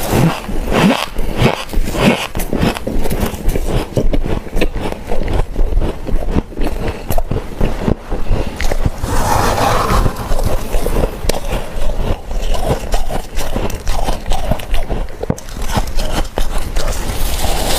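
Dry humidifier frost being crunched, with close, irregular squeaky crunching and scraping throughout.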